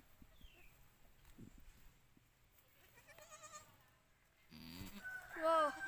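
A goat bleats near the end, a loud call that rises and falls in pitch. Before it there are only faint background sounds.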